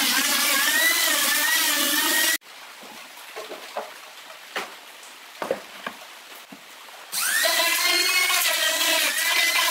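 Electric trim router running under load as it routs a circle through plywood, a wavering high whine that cuts off suddenly about two seconds in. A few seconds of light knocks from the board being handled follow, then the router starts up again with a quick rising whine and keeps cutting.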